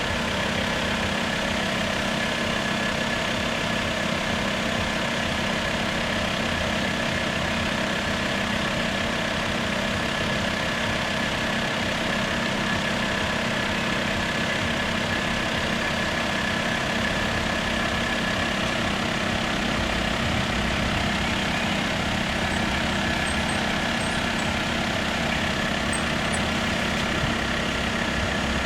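A vehicle engine running steadily at idle, an even hum with a steady higher tone over it that neither builds nor fades.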